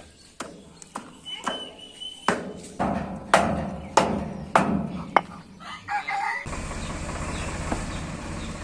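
Hammer blows at the foot of a threshing machine's steel support leg, a series of sharp knocks about one to two a second. About two-thirds of the way in they stop and a steady low background noise takes over.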